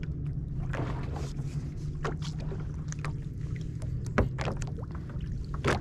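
Small fishing boat on the water: a steady low hum under scattered clicks and knocks, with a sharper knock about four seconds in and another near the end.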